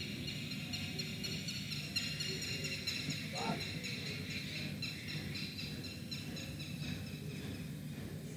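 Background ambience of high-pitched animal calls, many thin chirring tones layered together and wavering slightly, over a low rumble.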